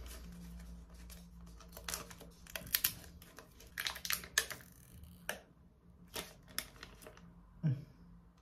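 Small sachet of under-eye patches being handled and torn open: an irregular run of sharp crinkles and clicks, most of them in the second half.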